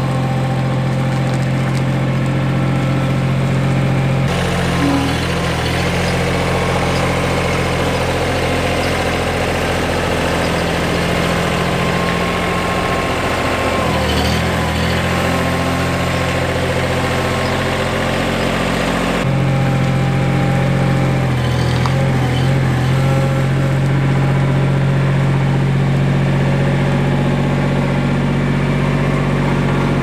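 GEHL 1620 mini skid steer loader's Isuzu diesel engine running steadily at a constant speed. The sound shifts abruptly about four seconds in and again about nineteen seconds in.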